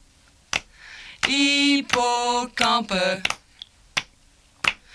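A voice chanting the word "hippocampe" as three drawn-out syllables on a nearly level pitch, from about a second in. Single sharp clicks come before it and twice near the end.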